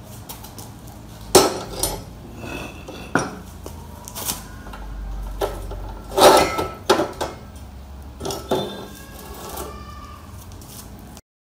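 Metal parts clinking and knocking together as they are handled, about half a dozen separate knocks, some leaving a brief metallic ring. The sound cuts off suddenly near the end.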